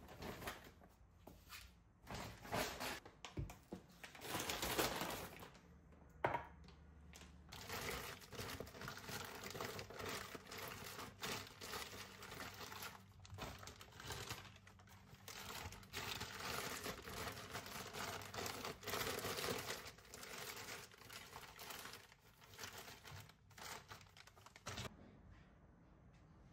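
Plastic grocery bags and foil packaging rustling and crinkling in irregular bursts as groceries are unpacked and handled on a countertop, stopping near the end.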